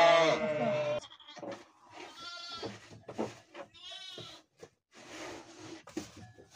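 Sheep and newborn lambs bleating: one loud bleat through the first second, then a string of shorter, higher bleats.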